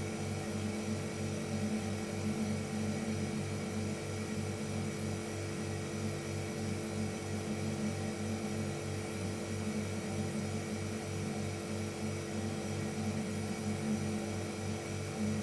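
Refrigerator compressor motor running: a steady hum with a fast, even pulsing low down.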